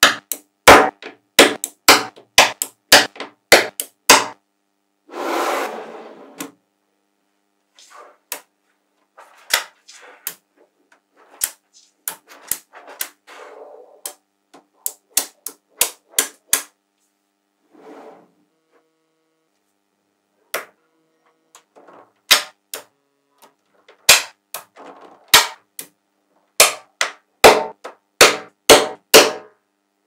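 Small neodymium magnetic balls clicking sharply as they snap onto one another, in irregular single clicks and quick runs. There is one longer scraping sound about five seconds in.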